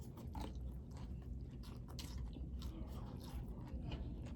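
Close-up eating sounds: chewing and small wet mouth clicks while eating pho noodle soup, over a low steady hum.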